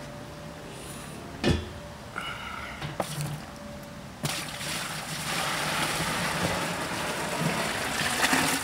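Hot sparge water poured from a stainless steel brew kettle into a plastic cooler: a steady splashing rush that starts about four seconds in and keeps going. Before it there is a single knock about a second and a half in.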